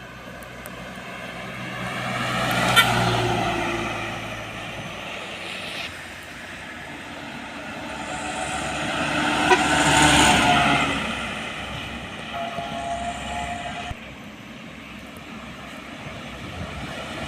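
Road vehicles, trucks among them, passing close by one after another: engine and tyre noise swells and fades twice, loudest about three seconds and ten seconds in.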